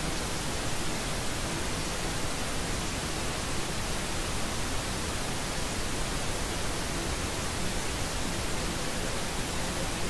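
Steady white noise: an even, unbroken hiss spread across all pitches, with no tones, beats or changes.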